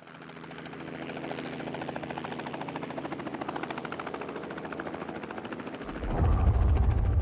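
Light helicopter's rotor chopping in a fast, steady rhythm, building up over the first second. About six seconds in, a deep low rumble swells in and becomes the loudest sound.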